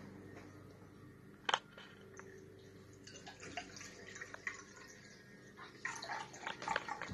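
Vinegar being poured from a plastic jug into a plastic measuring cup, the liquid dribbling and splashing in small bursts. There is a single sharp click about a second and a half in.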